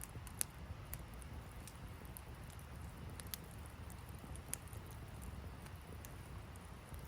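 Wood fire crackling, with irregular sharp pops, a few of them louder, over a steady low rumble.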